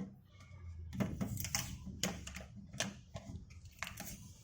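Freezer compartment door of a single-door direct-cool refrigerator being opened and handled: a handful of irregular plastic clicks and knocks.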